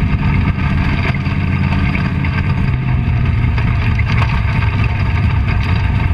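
Dirt-track race car engine heard from inside the cockpit, running steadily at low revs, with a slight drop in pitch about two seconds in.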